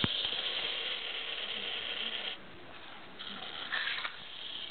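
Clockwork motor of a small wind-up Thomas the Tank Engine toy whirring as its spring unwinds, with a sharp click at the start. The whirr stops about halfway through, then comes back in two short bursts.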